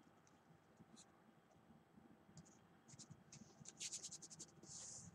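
Faint scratchy rubbing of something being wiped dry by hand, starting about halfway in and coming as quick strokes near the end.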